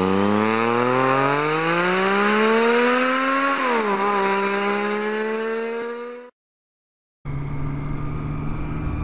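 Motorcycle engine accelerating, its note rising steadily, dipping briefly about three and a half seconds in as it shifts, then holding steady until it cuts off abruptly about six seconds in. After a second of silence comes the steady engine and wind noise of a Triumph Street Triple being ridden, heard from a helmet camera.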